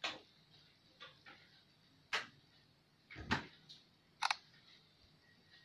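Faint handling noise from a smartphone held over a notebook: a few light taps and knocks, then a short, sharp camera shutter click about four seconds in as the photo is taken.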